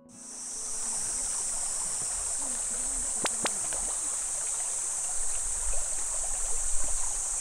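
Shallow creek running: a steady high hiss, with two sharp clicks a little after three seconds in.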